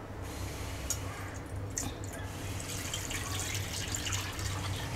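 Full-cream milk poured from a pot into a nonstick kadai, a steady splashing pour, with two light clicks in the first two seconds.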